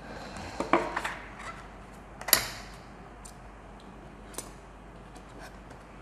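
Hard objects being handled on a tabletop: a quick cluster of clicks and knocks about a second in, one sharper knock a little over two seconds in, and a faint tick later on.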